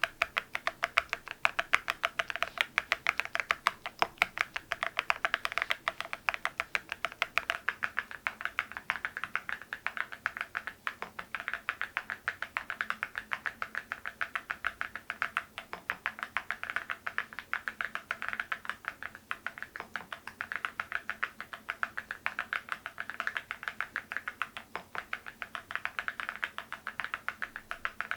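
Typing on an MZ Y3 mechanical keyboard: a steady stream of rapid, crisp key clicks, several keystrokes a second, with no pause.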